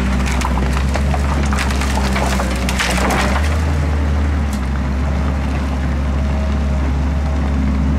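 NOE 170-6R forestry machine's six-cylinder diesel engine running steadily while its crane grapple drops a load of branches onto a brush pile, with cracking and snapping of wood for the first three seconds or so. After that only the engine is heard.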